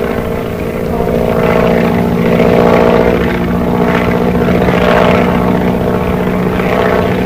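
Propeller-driven light plane's piston engine droning steadily, swelling louder a second or two in and easing off slightly near the end.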